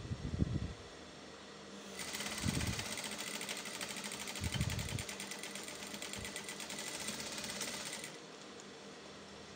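Sewing machine stitching a zip into a skirt seam: one steady run at a fast, even stitch rate, starting about two seconds in and stopping about two seconds before the end. A few dull low thumps come at the start and during the run.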